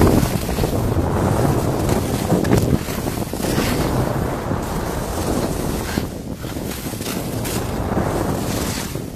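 Wind rushing over the microphone during a downhill ski run, with skis scraping and swishing over packed snow in the turns.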